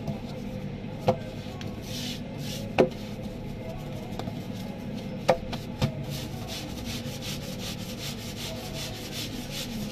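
Floured hands rubbing and working dough on a stone counter in repeated brushing strokes, with four sharp knocks, the loudest about three and five seconds in, over a steady machine hum.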